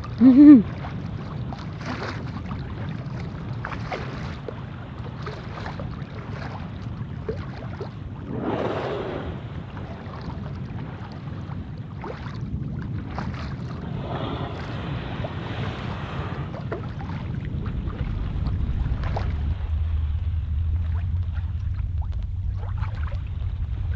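Water lapping and splashing along a sailing yacht's hull under way, with wind on the microphone and scattered small slaps. A short, loud voice-like exclamation just after the start is the loudest sound; longer whooshing swells come about 9 and 15 seconds in, and a low rumble builds in the last third.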